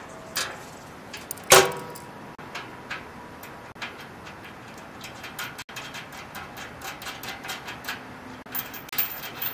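Small metal clicks and clinks of bolts and washers being fitted against a steel mailbox and its mounting post. One louder metallic clank rings briefly about a second and a half in, and a quick run of small ticks comes near the end.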